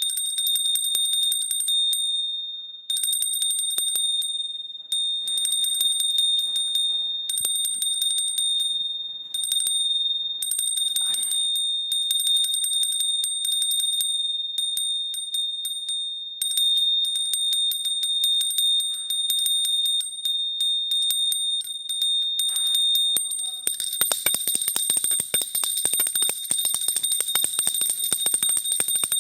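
Small high-pitched temple hand bell rung rapidly and continuously, its clapper striking many times a second, with brief pauses in the first few seconds. Near the end the ringing grows denser and busier.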